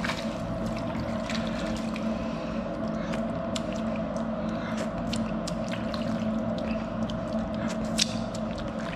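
Hands squishing and mixing chopped cooked head meat and pork rind in broth in a plastic bowl, with wet sloshing and many small clicks. A steady hum runs underneath, and there is one sharper knock near the end.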